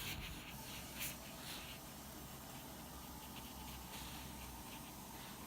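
Paintbrush stroking clean water onto watercolour sketchbook paper: faint soft scratchy strokes, one a little louder about a second in.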